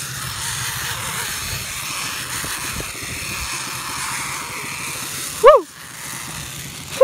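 Zipline trolley whirring along its cable with rushing wind. About five and a half seconds in comes a brief, loud cry falling in pitch.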